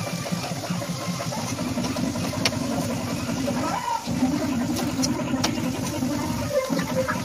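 Laccha paratha frying in oil on a non-stick tawa over a gas stove, pressed and pushed around with a wooden spatula. A steady low rumbling frying noise runs under scattered light clicks of the spatula.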